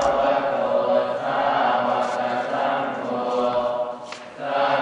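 Voices chanting in unison, long held notes in phrases of about a second, with a brief break about four seconds in.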